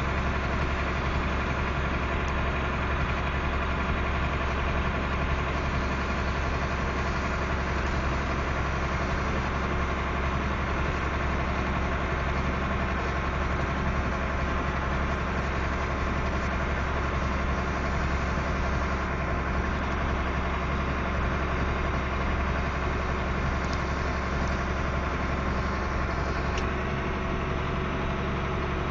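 A heavy vehicle's engine running steadily at an even, unchanging speed.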